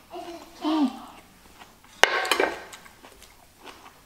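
A person eating with her mouth full: a short closed-mouth "mmm" that falls in pitch, then, about two seconds in, a sharp clink of a metal spoon set down against a dish, followed by a brief louder rustle.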